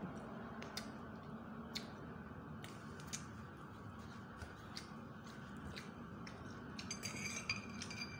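Spoon and fork tapping and scraping on a plate during a meal, with scattered light clicks and a short ringing metal clink near the end. A steady low hum runs underneath.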